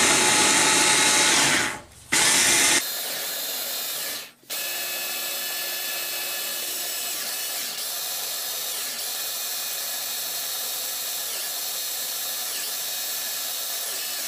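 Electric hand blender with a chopper bowl grinding onion chunks and water. The motor is loud at first and stops briefly twice in the first few seconds, then runs steadily and quieter as the onion turns to a thin mush.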